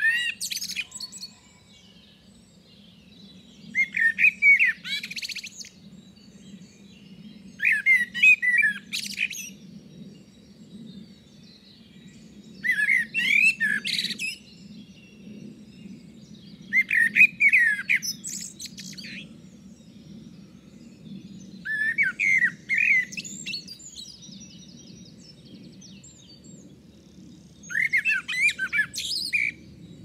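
A songbird singing loud, warbling phrases of about a second and a half, one every four seconds or so, each ending in a high twitter. Fainter birds call between the phrases, over a steady low hum.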